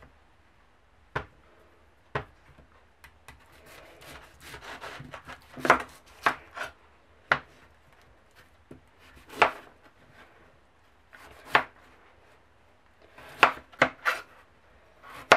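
A chef's knife cutting the skin off raw sweet potatoes on a cutting board. The blade knocks sharply on the board at irregular moments, about a dozen times, with softer scraping of the knife slicing through the flesh and peel in between.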